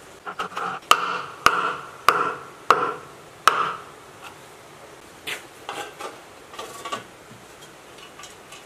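Hammer tapping a plastic cooling fan onto the rear shaft of a large electric motor: a few light taps, then five sharp strikes about 0.6 s apart, each with a short ring. After that come lighter clicks and rustles as the sheet-metal fan cover is handled and fitted.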